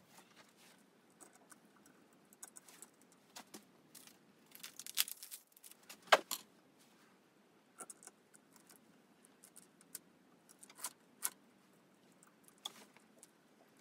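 Small metal parts rattling and clicking faintly while a small screw is picked out and screwed in during assembly. There is a short jingling rattle about five seconds in, and the sharpest click comes just after.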